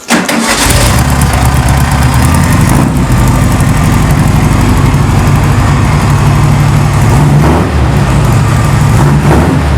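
VW dune buggy's air-cooled flat-four engine catching at once and then running at a loud, steady idle, being test-run before it comes out for a motor swap.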